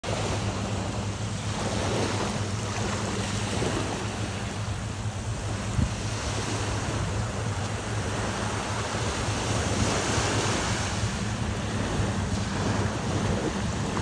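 Small waves washing onto a sand-and-shell beach, a steady rushing wash that swells and eases, with wind on the microphone. A steady low hum runs underneath.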